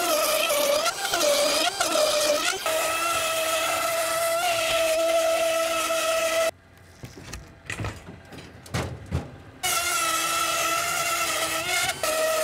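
High-speed handheld power tool cutting out a window opening through wall sheathing. Its motor whines steadily, wavering in pitch under load in the first couple of seconds. The whine stops for about three seconds past the middle, leaving a few low knocks, then resumes.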